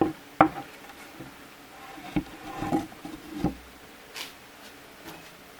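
Wooden pieces knocking and clunking as they are handled and set in place, with a sharp knock near the start and a few duller clunks in the middle.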